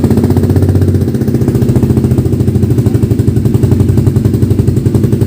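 Suzuki GSX-R150's single-cylinder four-stroke engine idling steadily through a newly fitted Akrapovic M1 full-system carbon exhaust, a loud, fast, even pulsing.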